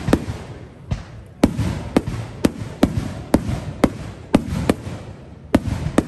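Rapid barrage of aerial firework shells bursting, a sharp bang about every half second with a low rumble between the bangs.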